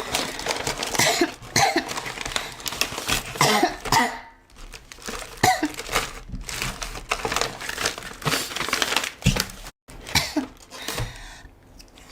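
A woman, ill with a fever, coughing over and over in repeated bouts, with a brief break about ten seconds in.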